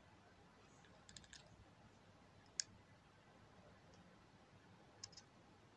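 Near silence, broken by a few faint sharp clicks: a quick cluster about a second in, a single louder click near the middle, and two more near the end.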